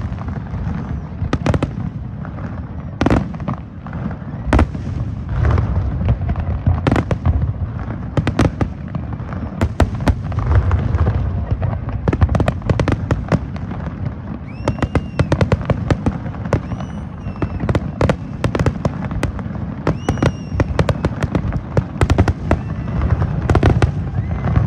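Fireworks display going off in rapid, irregular succession: many sharp bangs over a continuous low rumble.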